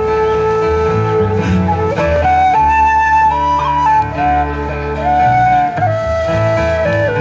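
Live band playing an instrumental passage: a melody of long held notes stepping up and down, over guitar and bass.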